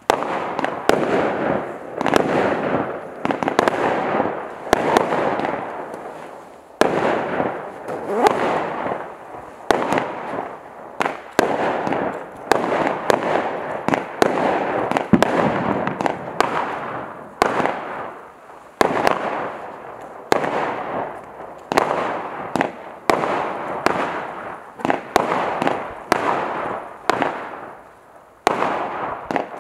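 Celtic Fireworks 'Golden Glory' 16 mm, 30-shot firework cake firing a fanned barrage: sharp shots and bursts in quick succession, each followed by a short noisy tail.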